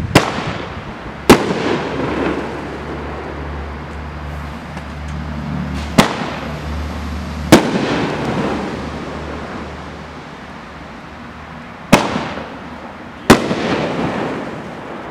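Dominator First Strike fireworks cake firing aerial shells: six sharp bangs in three pairs about a second and a half apart, each pair a shot launching and its shell breaking in the sky, with a rumbling, echoing tail after each bang.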